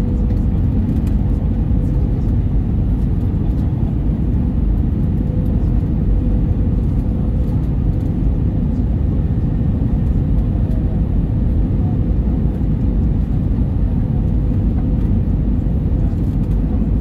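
Airbus A320 cabin noise on final approach with flaps extended: a steady low rumble of the engines and rushing air, with a steady hum running through it.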